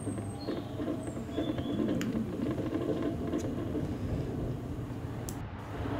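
Electric mobility scooter driving along a path: a steady motor hum with the scooter rattling over the ground, and a few sharp clicks.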